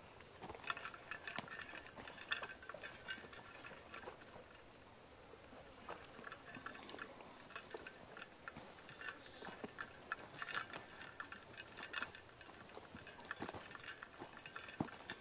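Faint, irregular crunching footsteps of hikers walking a woodland trail.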